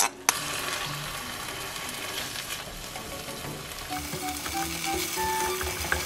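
Chopped kimchi sizzling in hot oil in a frying pan, with two sharp knocks as it is tipped in from a bowl, then a steady sizzle as it is stir-fried with a silicone spatula. Soft background music comes in about two-thirds of the way through.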